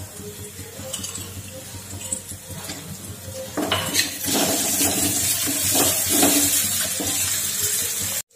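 Metal ladle stirring and scraping fried onions and ginger-garlic paste around a kadhai, over light sizzling in the hot oil. The scraping and clinking start about three and a half seconds in and are louder from there, then cut off suddenly near the end.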